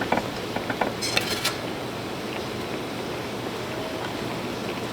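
Utensils and dishes being handled while serving food: a few light clinks in the first second and a brief scraping rustle about a second in, over a steady hiss.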